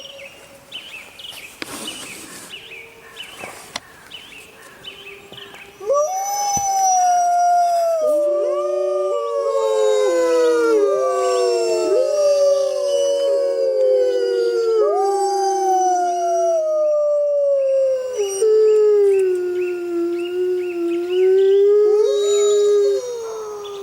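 Several wolves howling together, their rising and falling howls overlapping at different pitches. The chorus starts suddenly after a quieter stretch of short calls, pauses briefly about two-thirds through, then starts again and fades near the end.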